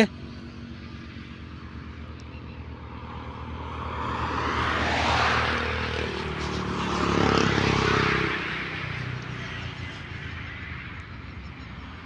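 Road traffic on the highway: vehicles passing close by, their tyre and engine noise swelling twice about five and seven seconds in, then fading back to a steady low hum.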